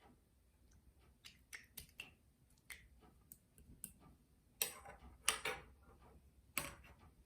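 Clear slime being pressed and worked by hand, giving faint irregular clicks and small pops, with a few louder pops about halfway through and near the end.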